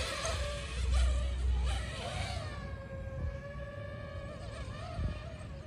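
DJI FPV drone's propellers whining in flight, a steady pitch that wavers slightly as it manoeuvres. Wind rumbles on the microphone for the first couple of seconds.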